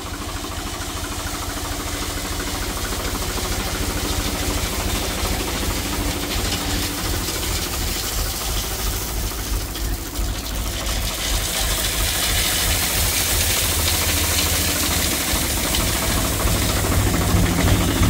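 Swaraj 735 FE tractor's three-cylinder diesel engine running steadily with a low, even knocking beat.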